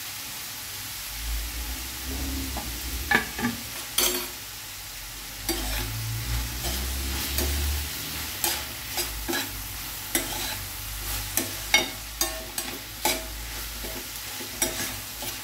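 Chopped onion, capsicum and tomato sizzling in a stainless steel frying pan over a high gas flame. A spatula stirs them, scraping and clicking irregularly against the pan from a few seconds in.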